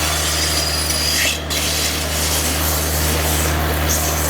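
GAZ-69 off-roader's four-cylinder engine running steadily under way: a constant low drone with a rough rushing noise over it.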